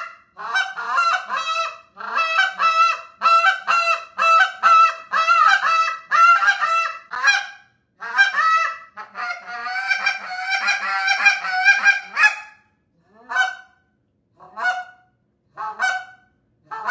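JT Calls "Short Fuse" goose call blown by mouth, imitating Canada geese: quick runs of short honks, then a denser, rolling stretch of notes, then a few spaced single honks.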